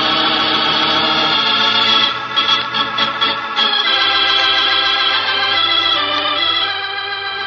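Organ bridge music between scenes of a radio drama: held chords, a quick run of short notes about two seconds in, then a long held chord that starts to fade near the end.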